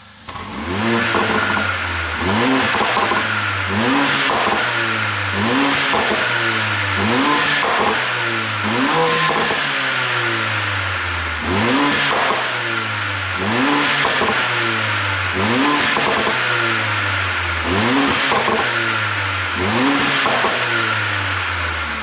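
Mercedes-AMG CLA45's turbocharged 2.0-litre four-cylinder free-revving in repeated short throttle blips, about one every one to two seconds. Each rev falls back with a string of sharp exhaust pops and crackles on the overrun, the sound of an ECU pop tune.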